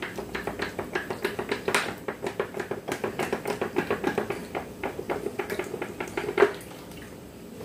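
Cooking oil poured from a plastic bottle into a hot frying pan: a dense run of crackles and gurgling as the stream hits the pan. The pouring ends with a sharp knock about six and a half seconds in.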